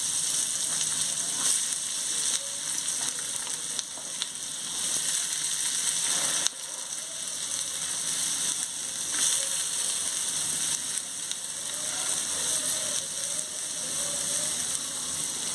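Chopped onions sizzling in hot oil in a frying pan: a steady frying hiss with small pops, a little quieter from about six and a half seconds in.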